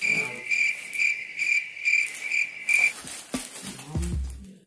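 Cricket chirping: a high chirp repeated about two to three times a second, about seven chirps, that cuts off abruptly about three seconds in.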